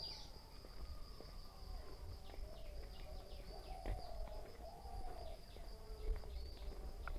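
Rural outdoor ambience: a steady high-pitched insect buzz with many short, falling bird chirps over it.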